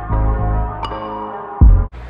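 Intro music: sustained chords over deep bass notes that come in twice, cutting off suddenly near the end.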